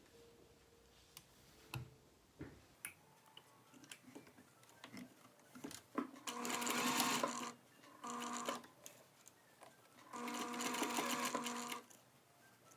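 Sewing machine straight-stitching a triple-folded shirt hem in three short runs: about a second and a half, a brief one under a second, then about a second and a half again. Small handling clicks come before the first run.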